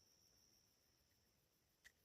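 Near silence: a faint steady high-pitched tone with one faint click near the end.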